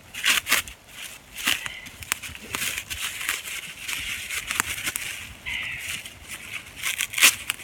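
Campfire crackling: scattered sharp crackles and clicks over a steady hiss.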